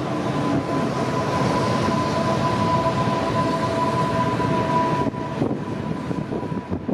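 A 485-series electric train running at the platform, with a dense rumble and a steady two-note high tone held for about five seconds that cuts off suddenly. Strong wind on the microphone is mixed in.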